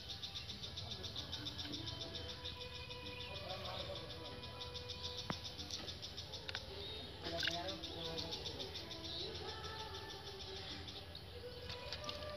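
Insects chirring: a rapid, high-pitched pulsing trill that fades out about halfway through and returns near the end.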